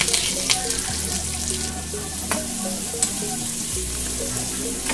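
Freshly added chopped onions and curry leaves sizzling in hot oil in a kadai, stirred with a metal spoon, with a few sharp clicks.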